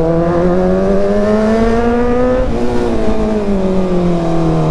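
Motorcycle engine pulling under acceleration, its pitch rising steadily for about two and a half seconds, then falling as the throttle eases off.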